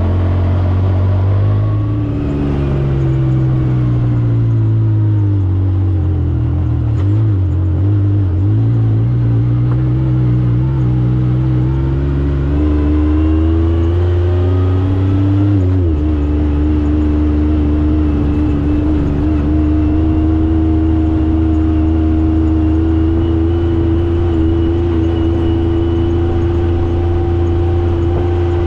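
Yamaha YXZ side-by-side's three-cylinder engine running under way. Its pitch falls and rises several times with throttle and gear changes in the first half, then holds a steady, slowly rising note.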